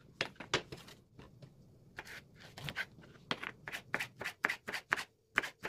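Knife chopping nopal cactus paddles into strips on a wooden cutting board: a run of crisp, irregular strokes a few a second, with a short pause about a second in.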